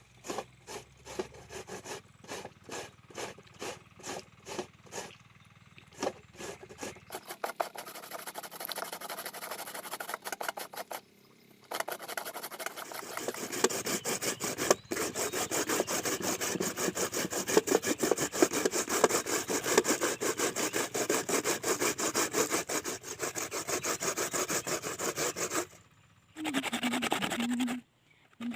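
Green (unripe) papaya being grated on a hand grater, with repeated rasping strokes. They are slow and spaced at first, then turn fast and louder about halfway through, with short pauses.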